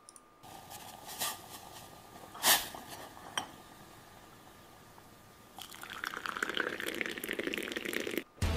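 AI-generated (Veo3) kitchen sound of tea being poured through a strainer into a cup: a steady splashing pour that begins about five and a half seconds in and cuts off suddenly near the end. Before it there is a faint hiss with a few sharp clinks.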